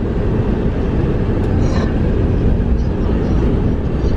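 Steady rumble of road and engine noise inside a moving car, heavy in the low end and even in level throughout.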